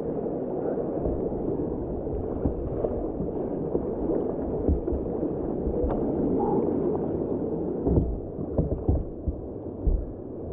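Whitewater rapids rushing around a kayak, a dull steady churn of water, with a few low thumps in the last few seconds.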